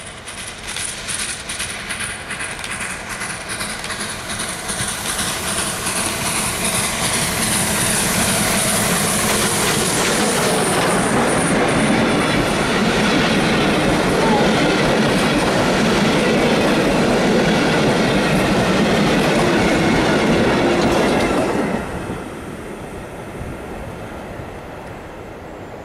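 FS Class 625 2-6-0 steam locomotive and its train of vintage passenger carriages approaching and passing close by, growing louder over the first several seconds. The carriages then clatter past on the rails, and the sound drops off sharply a few seconds before the end as the last carriage goes by and the train moves away.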